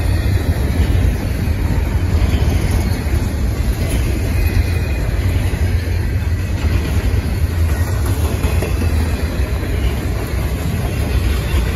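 Double-stack intermodal well cars rolling past on the rails: a steady, unbroken low rumble of wheels on track.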